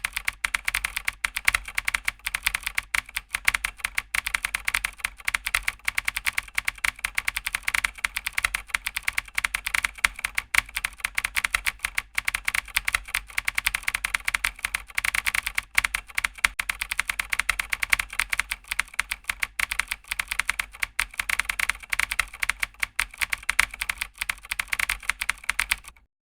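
Rapid, continuous computer-keyboard typing: a dense run of quick key clicks that cuts off suddenly near the end.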